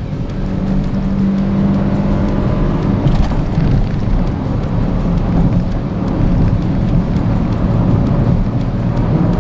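Perodua Axia's small three-cylinder engine running at high revs, with tyre and road noise, heard from inside the cabin at highway speed. Background music plays over it.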